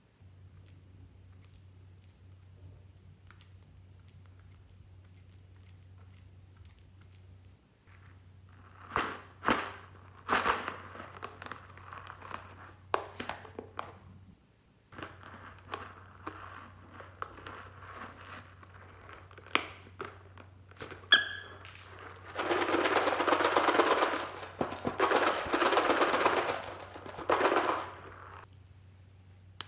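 Small plastic items being handled over a glass tray of foam beads and slime: scattered clicks and taps, then about six seconds of loud rattling in three bursts near the end, over a faint steady hum.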